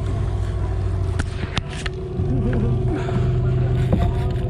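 Small fishing boat's outboard motor running steadily, its hum rising slightly in pitch about two seconds in, with a few sharp clicks about a second in.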